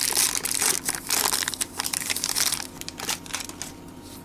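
Foil wrapper of a 1991 Fleer Ultra baseball card pack crinkling rapidly as it is opened by hand, dying away about three seconds in.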